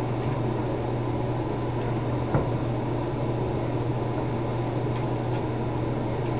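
Steady low electrical hum and background hiss, with a single sharp click about two and a half seconds in, typical of a tool or small metal part knocking against the marker during disassembly.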